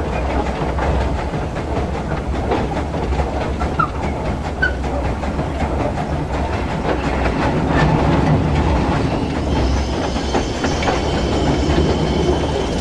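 Two-foot-gauge Orenstein & Koppel steam locomotive under way, heard from its footplate: a steady rumble with a busy rattle and clatter of wheels and running gear on the track. A faint high whine joins in after about ten seconds.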